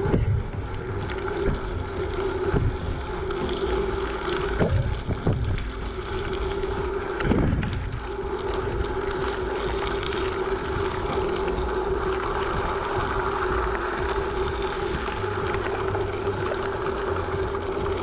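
Bicycle tyres rolling over a gravel trail, with wind buffeting the microphone and a steady hum. Several low thumps in the first half as the bike jolts over bumps.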